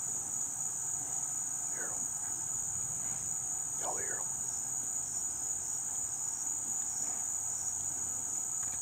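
Night insect chorus holding one continuous high buzz, with two faint short calls about two and four seconds in.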